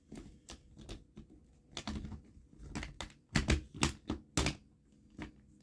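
Irregular sharp clicks and clacks of small hard resin pieces being handled and set down on a hard surface, about ten in all, bunched together around the middle.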